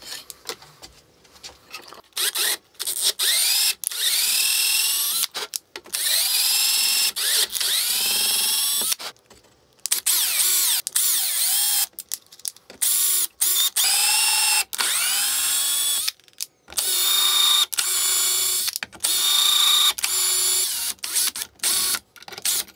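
Cordless drill-driver driving screws into acetal plates, run in a series of trigger pulls of a few seconds each with short pauses between; the motor's whine sweeps up in pitch at the start of each run.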